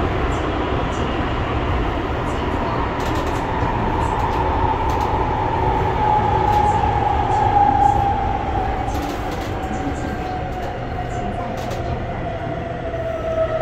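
In-car running noise of an AREX commuter train: a steady rumble of wheels on rail under a motor whine that slowly falls in pitch as the train slows, with a few scattered clicks.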